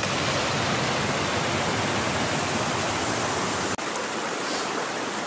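Steady rush of fast-flowing water from a stream and waterfall. It breaks off for an instant just under four seconds in and then carries on with less bass.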